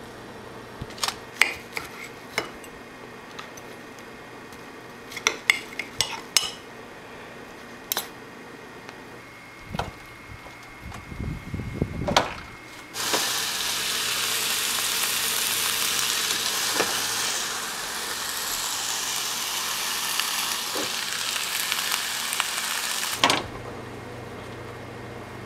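A fork clinking and scraping against the grill plate and a plastic container as grilled ground-turkey patties are lifted off a George Foreman electric contact grill. About halfway, raw chicken breasts sizzle loudly and steadily under the closed grill lid, and the sizzle cuts off abruptly near the end.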